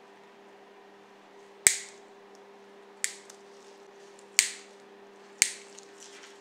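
Four sharp metallic snaps, each with a short tail, spaced a second or so apart. They come from tweezers and pliers working a thin metal bumper strip on a diecast model car.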